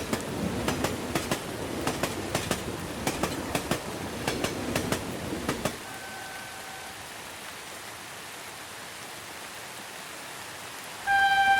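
A train rolling past with a rumble and a rapid run of sharp wheel clacks over rail joints, which stop about six seconds in, over a steady hiss of rain. A brief faint tone follows, then near the end a loud single-pitched horn starts.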